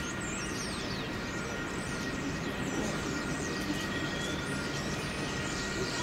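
Steady outdoor din of a city railway construction site: a low, even rumble of traffic and machinery, with two faint steady high tones and scattered short high chirps over it.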